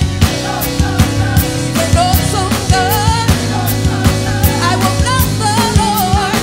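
Live gospel music: a lead singer's wavering, ornamented vocal line over singers and a band, with a steady drum beat and sustained bass notes.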